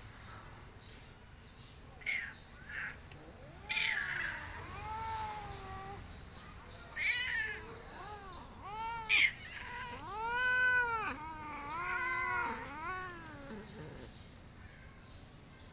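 Orange tabby cat meowing repeatedly, about eight meows that rise and fall in pitch, some short and some drawn out. The longest and loudest comes about two-thirds of the way through.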